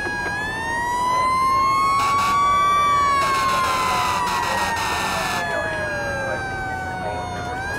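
Fire engine sirens wailing, several at once at different pitches, each slowly rising and falling. A harsher, noisier blast cuts in for about two seconds in the middle.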